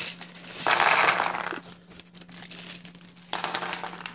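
Loose plastic keycaps clattering and clinking together as they are tipped out and handled. There is a loud, dense rattle about half a second in that lasts about a second, then scattered clicks, and a shorter clatter near the end.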